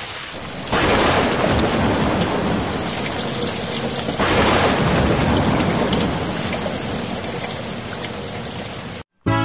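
Heavy rain with thunder, swelling louder about a second in and again about four seconds in, then cutting off suddenly near the end.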